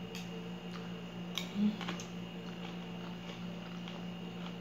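Quiet eating sounds: a metal spoon clicking a few times against a salad bowl, and chewing, over a steady low hum.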